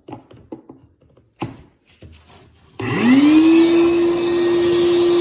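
A few light clicks and knocks, then about three seconds in a shop vac is switched on: its motor spins up with a quickly rising whine and settles into a steady run. Its hose has just been cleared of a clog.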